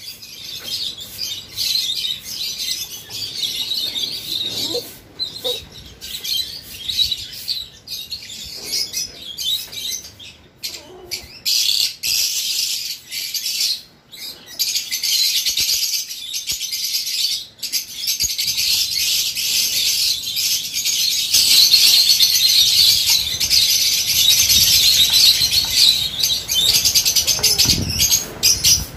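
A flock of lovebirds chattering with a continuous stream of shrill chirps, growing louder about two-thirds of the way in.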